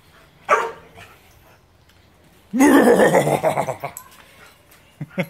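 Four-month-old bull mastiff x bull arab pup vocalizing in rough play: one short sound about half a second in, then a louder, drawn-out call that bends in pitch and breaks up over about a second and a half.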